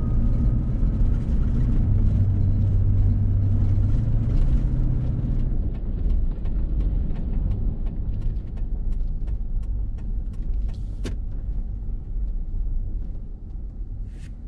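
A motor vehicle driving: a steady low rumble of engine and road noise. It eases off about five seconds in and gets quieter near the end, with a few light clicks.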